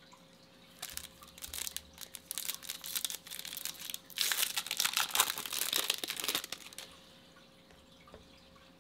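Foil wrapper of a Topps Chrome baseball card pack crinkling and tearing as it is opened by hand. The rustle starts about a second in, grows loudest in the middle and stops a couple of seconds before the end.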